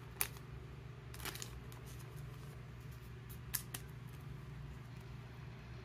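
A trading card being slid into a thin plastic card sleeve: a few short, sharp clicks and a brief plastic rustle about a second in, over a low steady hum.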